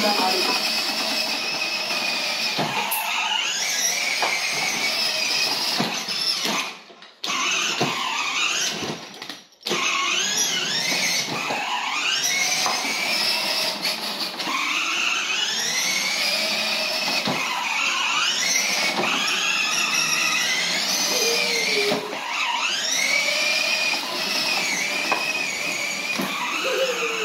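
A child's 12-volt electric ride-on toy motorcycle making a high whine that rises and falls over and over as it speeds up and slows down, cutting out briefly twice, about 7 and 9.5 seconds in.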